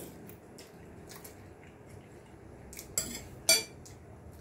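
Cutlery and dishes clinking during a meal, with faint small ticks and then two sharp clinks about three seconds in, half a second apart. The second is the loudest and rings briefly.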